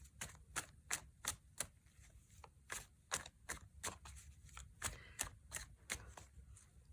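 Tarot cards being shuffled by hand: a run of soft, quick card snaps, about three a second, with a brief gap near two seconds in.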